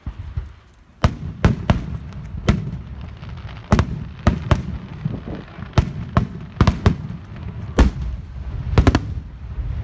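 Fireworks going off: an irregular series of sharp bangs, starting about a second in, over a low rumble.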